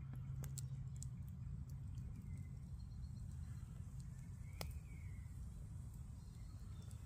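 Wood fire burning in a metal fire pit, crackling faintly, with scattered sharp pops (the strongest about four and a half seconds in) over a low rumble.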